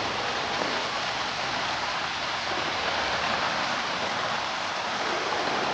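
Heavy rain and running water making a steady, even hiss with no break.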